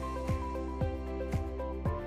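Background music with a steady beat, about two beats a second, over held tones.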